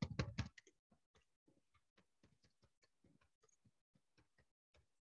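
Very faint, irregular clicking of keystrokes on a computer keyboard as a sentence is typed.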